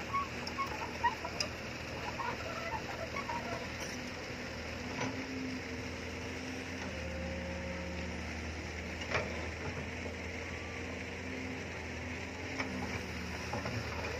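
Hitachi crawler excavator working: the diesel engine hums steadily while the hydraulic whine rises and falls in pitch as the boom and bucket move through the soil. A few short knocks come from the machine as it works.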